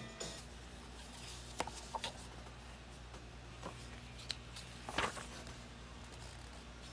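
Pages of a thick paperback textbook being turned by hand: a few light paper rustles and taps, the loudest about five seconds in, over a low steady room hum.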